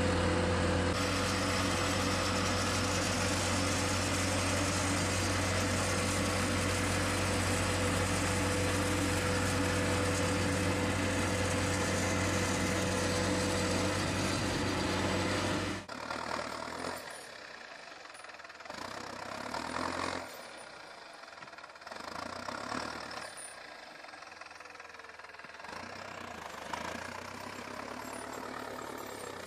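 Tractor engines running hard and steady under load while a tractor stuck in mud is winched and towed out. About halfway through, this cuts suddenly to a quieter tractor engine working a snowblower through deep snow, rising and falling in swells.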